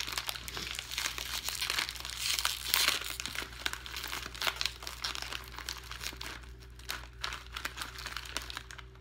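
Crinkly plastic snack bag being torn open and handled, a dense crackling rustle that is loudest about two to three seconds in and eases off toward the end.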